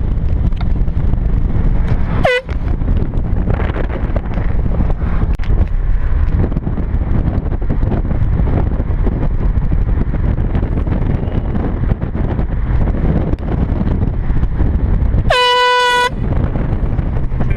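A handheld canned air horn blasts once near the end, one steady note about a second long, over the steady rumble of the moving car.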